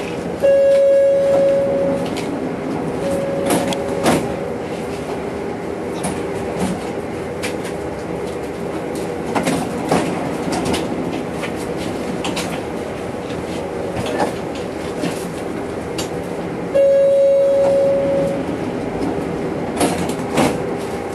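Tram standing at a stop, heard from on board: a steady electrical hum with scattered clicks and knocks. A loud steady electronic beep lasting about a second and a half sounds about half a second in and again near the end.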